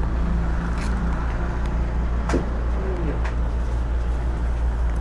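Yamaha NMAX 155 scooter's single-cylinder engine idling with a steady low hum, with a few faint clicks.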